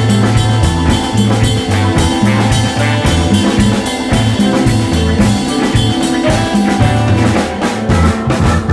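Soul-funk band recording: a drum kit plays a busy beat over a moving bass line, with sustained keyboard and guitar parts above.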